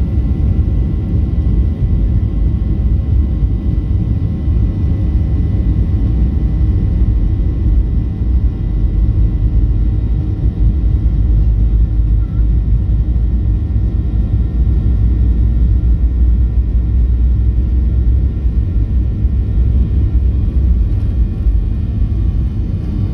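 Boeing 737 heard from inside the passenger cabin as it rolls along the runway: a loud, steady low rumble of engines and wheels, with faint steady whine tones above it.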